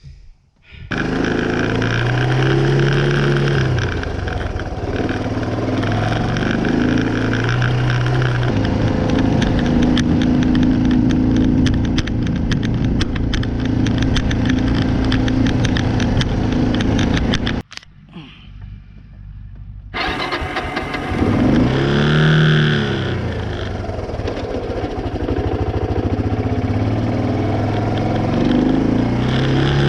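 Kawasaki quad bike engine running as it is ridden, its pitch rising and falling with the throttle. The sound drops out suddenly for about two seconds around two-thirds of the way through, then the engine picks up again.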